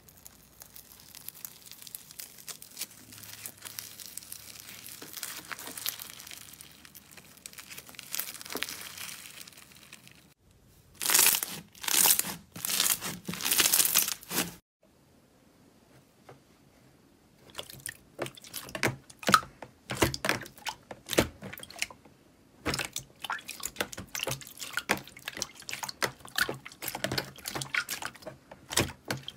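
Slime being worked by hands. First a fine, steady crackling as foam-bead slime is pulled and torn, then a few loud crunching squeezes. After a short pause comes a rapid run of sticky pops and clicks as clear jelly slime is pressed with flat hands.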